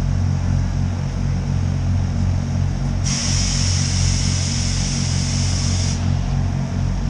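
Norfolk and Western Class J No. 611 steam locomotive moving slowly with a steady low rumble. About three seconds in, a loud hiss starts abruptly, runs for about three seconds, then cuts off sharply.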